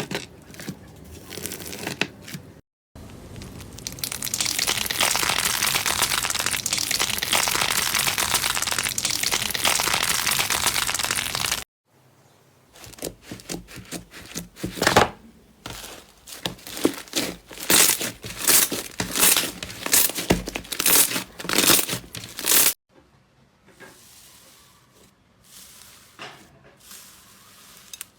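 Slime being worked by hand close to the microphone: a long stretch of dense, steady crackling, then about ten seconds of sharp clicks and pops, then softer scattered crackles near the end.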